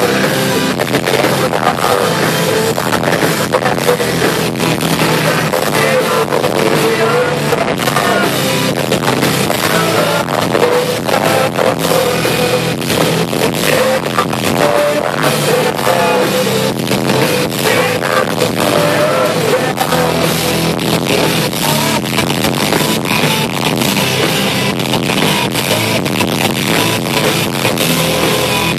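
Rock band playing live at concert volume: electric guitars, drums and singing in a dense, unbroken wall of sound.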